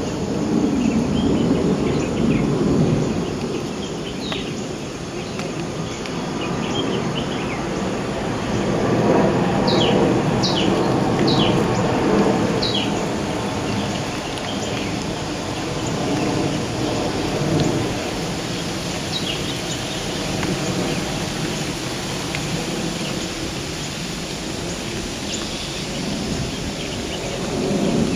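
Steady rain falling, with low rumbles swelling and fading several times. Birds chirp now and then, with a short run of quick falling chirps about ten seconds in.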